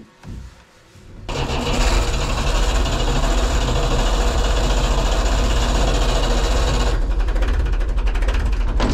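Lifeboat's inboard engine starting up about a second in, then running loud with a fast, even pulsing, heard from inside the enclosed hull.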